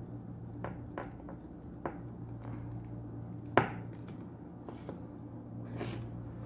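Hands handling a plastic massager unit: scattered light clicks and taps against its plastic housing, with one sharper knock about three and a half seconds in.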